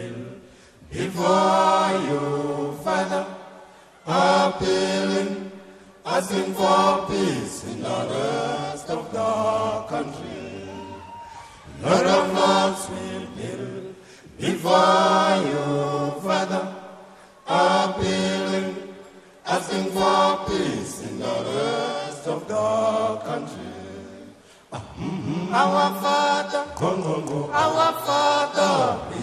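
An a cappella choir chanting in harmony, in sung phrases of two to three seconds with short pauses between them.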